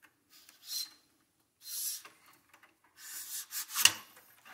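Cleaning rod being run through a fire-damaged AR-15 barrel: three separate rubbing strokes, the last ending in a sharp knock near the end.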